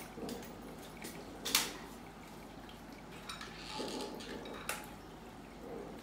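Sharp clicks and snaps from stiff artificial twigs being cut and pushed into a flower arrangement, the loudest about a second and a half in. Effortful breathing comes between them, because the twigs are hard to cut and press in.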